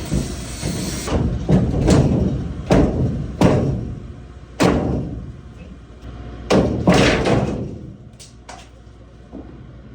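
Sheet-metal ductwork being torn out and dropped: about ten irregular bangs and thuds, each ringing briefly, thinning out toward the end.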